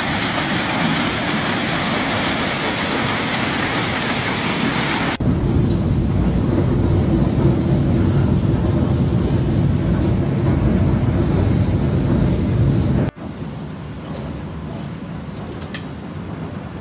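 Heavy hailstorm: a dense, steady roar of hailstones pelting roofs and streets. The sound changes abruptly about five seconds in, turning louder and deeper, then drops to a quieter roar about thirteen seconds in.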